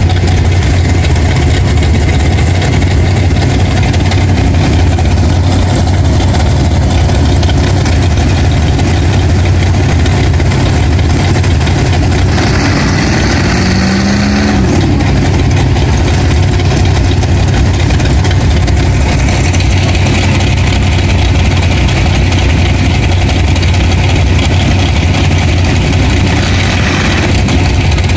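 Big engines of mud-bog vehicles running steadily, loud and low, while a truck stuck deep in mud is towed out. A short rise in pitch about halfway through.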